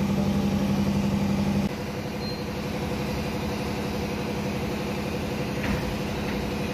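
A motor running with a steady hum. A little under two seconds in it gives way abruptly to a quieter steady hum.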